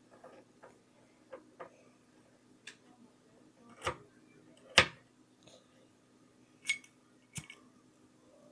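Irregular sharp metallic clicks and taps from a Zippo-style petrol lighter being handled, a few light ones and then several louder clacks, the loudest about five seconds in.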